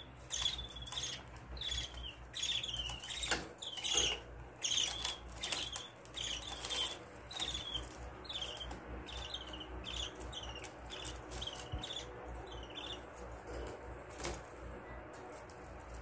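Budgerigar chicks giving short chirping begging calls, repeated about twice a second and fading out near the end, with a few sharp clicks among them.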